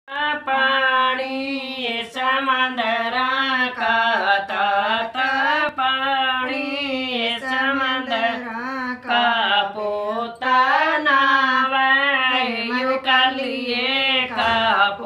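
Women singing a Haryanvi wedding folk song (lokgeet), unaccompanied, in a continuous, gently winding melodic line.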